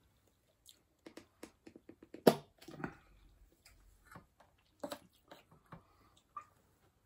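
Sounds of eating: spoons clinking and scraping on a plate and a metal bowl, with chewing, heard as a series of short clicks and knocks. The loudest knock comes a little over two seconds in.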